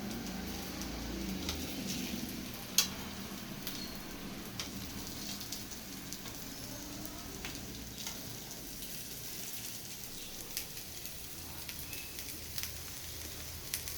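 Potato pancakes frying in oil in an open pan: a steady sizzle with scattered pops and crackles, one sharper pop about three seconds in.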